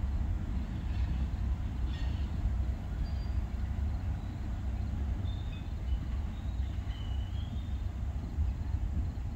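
Low, steady rumble of a LORAM ballast train rolling slowly away around a curve.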